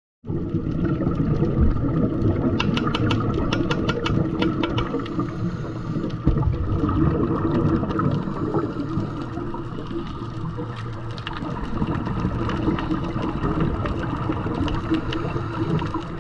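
Underwater sound picked up by a diver's camera in its housing: a steady low rumble of water, with a run of sharp crackling clicks from rising scuba exhaust bubbles a few seconds in.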